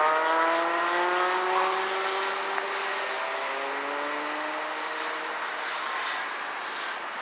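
Several Rotax Max two-stroke kart engines running at low revs as a group of karts cruise past slowly. Their pitches overlap and rise gently, and the sound grows fainter toward the end.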